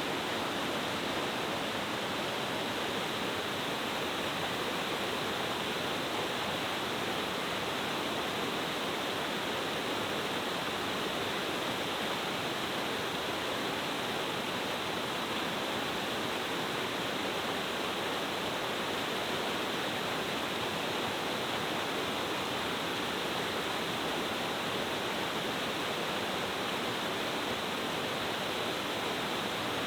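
Oshidori-kakushi Falls, a stepped cascade waterfall dropping over several tiers, rushing steadily: an even, unbroken sound of falling water with no change in strength.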